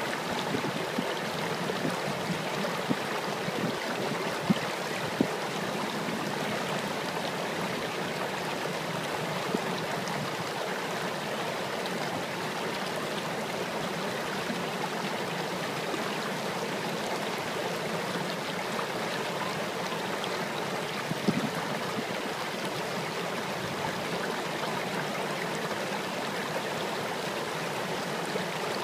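Water of a shallow man-made stream rushing and burbling over rocks in a steady wash, with a few brief louder pops.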